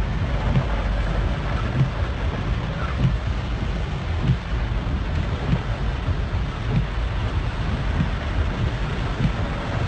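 Heavy rain on a car, heard from inside the cabin as it drives through floodwater: a steady rushing hiss over a low rumble, with irregular dull thumps.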